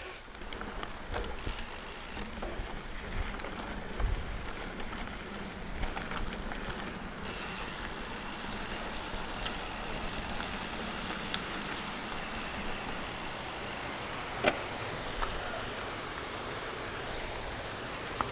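Mountain bike rolling over a rough trail: steady tyre and wind noise with scattered small rattles and knocks, and a brief louder clatter about fourteen seconds in.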